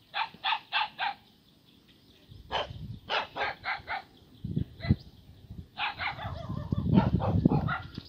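A dog barking in quick runs of several barks, about three a second, with a pause between runs. A low rumbling noise builds under it in the second half.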